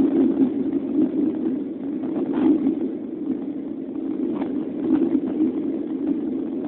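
Aircraft cabin noise: the steady, even drone of the engines and airflow heard from inside the cabin, with no change in pitch or level.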